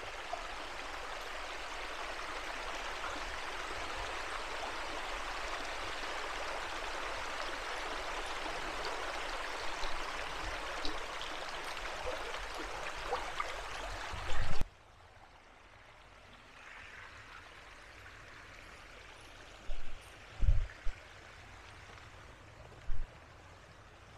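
Small rocky forest creek running over stones, a steady watery rush that cuts off abruptly about fourteen and a half seconds in. After that it is much quieter, with a few dull thumps.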